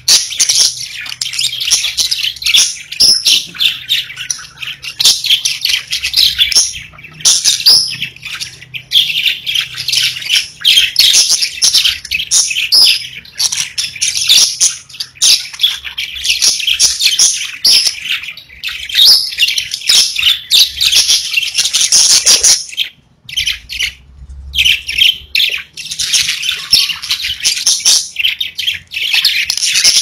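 Pet budgerigars chattering: rapid high chirps and warbling run almost without a break, with two short pauses about three-quarters of the way through.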